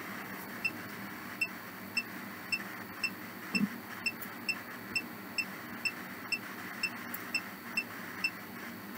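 Ghost-box (spirit box) app running: a steady hiss of static with a short high beep repeating about twice a second.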